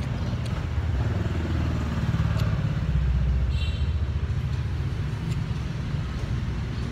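Street traffic: a motor vehicle's engine passing close by. Its pitch climbs early on, it is loudest about three seconds in, and then it fades back into the steady traffic rumble.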